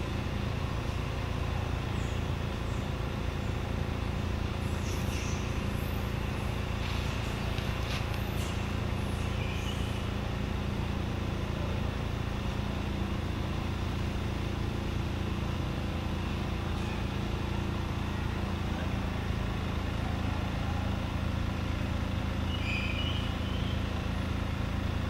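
Steady engine hum, like a motor running at idle, unchanging throughout, with a few faint short high-pitched squeaks over it.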